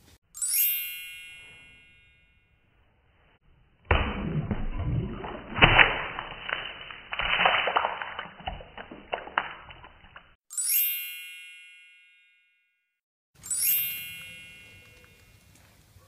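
Three bright chime sound effects, each struck once and ringing away over about two seconds. Between the first and second, a muffled six-second stretch of splashing and clinking as something drops into a water-filled glass jar.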